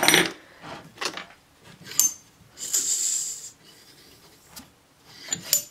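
A short hiss of air pushed out of the model steam engine's cylinder as the crankshaft is turned over by hand, about three seconds in. The hiss is the cylinder making compression with no gaskets fitted. Light metal clinks come before and after it.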